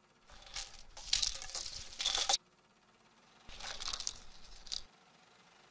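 Crunching, crackling noise of coffee beans being sucked up by a robot vacuum, in two bursts. The first lasts about two seconds and cuts off suddenly; the second, about a second and a half later, is shorter.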